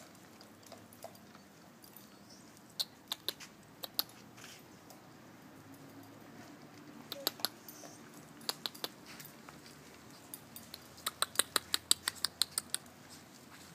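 Dog claws clicking on a hard stone floor: scattered clicks, then a quick run of about a dozen near the end as the puppies scamper up and jump.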